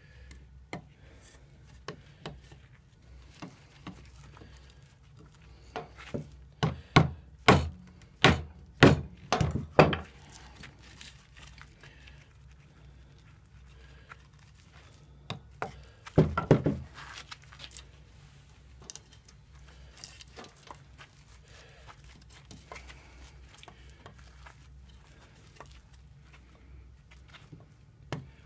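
Rubber mallet striking the spine of an XC75 carbon-steel neck knife, batoning it into wood: a quick run of about eight sharp knocks about six seconds in, then a short cluster of knocks later, with small scattered wood taps in between.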